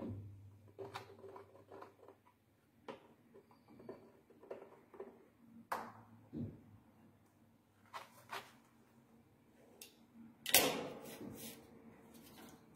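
Scattered light scratches, taps and clicks of a marker and fingers on a stiff sheet laid over a welding machine's heating plate, as mounting holes are marked out. A louder rustling scuff lasting about a second comes near the end.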